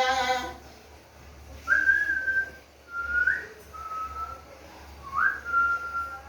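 A person whistling to call a puppy: four short whistles, most sliding up in pitch and then holding steady, the last one longest. A called word trails off at the very start.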